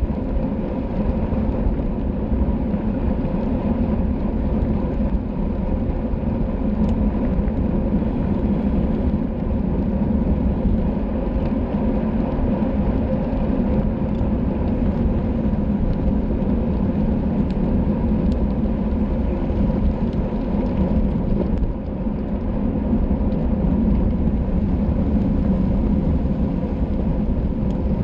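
Steady wind and road noise on a racing bicycle's onboard camera microphone while riding at race speed: a constant low rush with no breaks.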